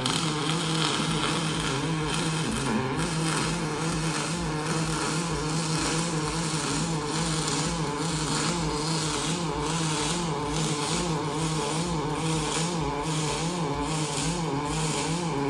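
Robotic MIG/MAG welding arc burning on H-beam steel: the arc strikes suddenly at the very start, then keeps up a steady buzzing hiss with irregular crackle.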